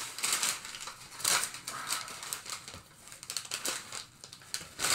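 Brown kraft packing paper crinkling and rustling in irregular bursts as it is pulled and crumpled out of a cardboard shipping box.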